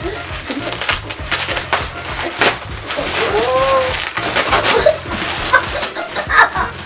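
Foil gift wrap being torn and crinkled as two presents are unwrapped, a dense crackling rustle. A child gives a short rising-and-falling exclamation in the middle.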